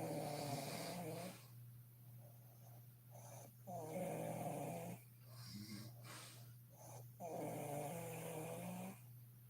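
A sleeping woman snoring: three loud, rattling snores on the in-breath, each about a second and a half long and spaced about three and a half seconds apart, with quieter breaths between them.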